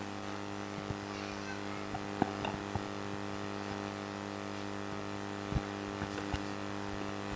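Steady electrical mains hum in the sound system, a low buzz that holds unchanged, with a few faint clicks and knocks, the clearest about two seconds in and again past five seconds.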